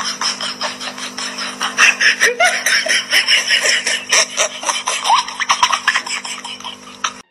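People laughing in many short, irregular bursts over a steady low hum.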